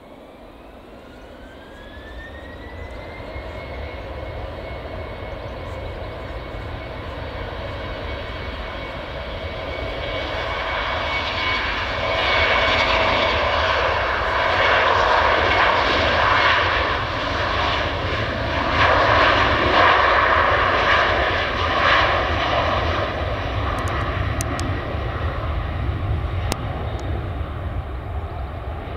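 Embraer 190 airliner's twin GE CF34-10E turbofans spooling up to take-off power: a whine rises in pitch over the first few seconds, then holds steady. The jet noise grows louder as the aircraft accelerates down the runway, is loudest around the middle as it passes, and eases slightly near the end.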